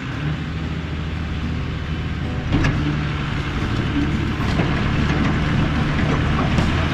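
Tractor engine running steadily under load, with a few light knocks or rattles about two and a half seconds in.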